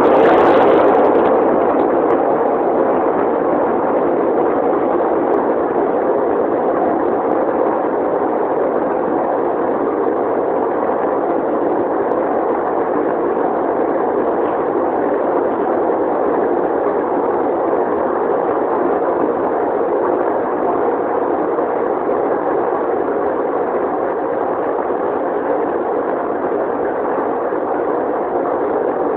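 A distant fireworks-warehouse explosion rumbling away over the first second or two, then a steady rushing rumble that goes on without separate bangs.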